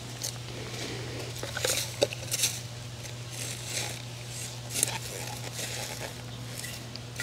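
Gloved hands and a small hand tool digging and scraping in dry garden soil, with irregular scratches and rustles.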